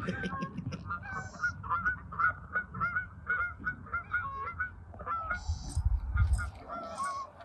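A flock of geese honking as they fly over, with many short, overlapping honks one after another. A brief low rumble comes in about five to six seconds in.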